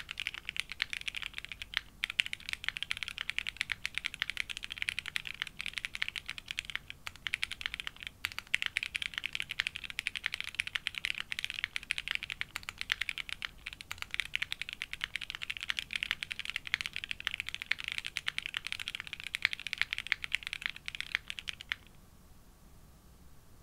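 Fast, continuous typing on a plateless Geonworks W1-AT mechanical keyboard with lubed SP-Star Meteor White linear switches and GMK Camping keycaps. The keystrokes stop shortly before the end.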